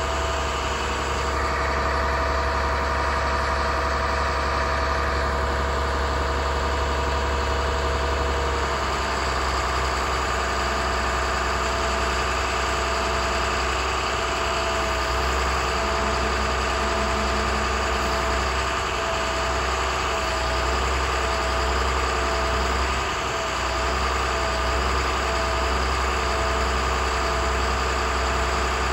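International 7300's MaxxForce DT turbo diesel idling steadily while it powers the Terex digger derrick's hydraulics as the boom is lowered and extended. A steady whine rides over the engine's low hum.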